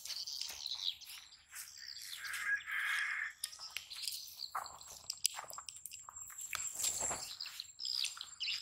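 Birds chirping with a thin, steady high insect trill, over scattered scuffs and rustles. A louder call stands out about two seconds in.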